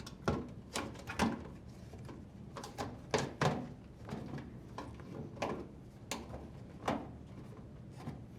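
Rubber door boot seal of a front-load washer being pulled free from the front panel's lip: an irregular run of sharp knocks and clicks with rubbing in between, the loudest a pair about three seconds in.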